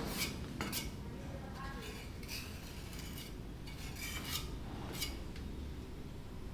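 Irregular light clinks and taps of small hard objects knocking together, a dozen or so over a low steady rumble.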